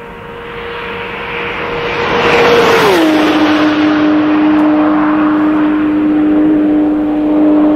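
A car going past at high speed. Its steady engine note drops sharply in pitch about three seconds in as it goes by, and the sound swells to its loudest there and stays loud.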